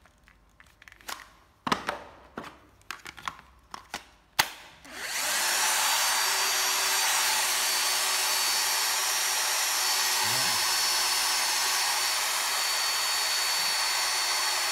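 Plastic clicks and knocks as a battery pack is handled and fitted, ending in a sharp snap a little over four seconds in. About five seconds in, a Hitachi 12V cordless drill starts and runs at a steady speed.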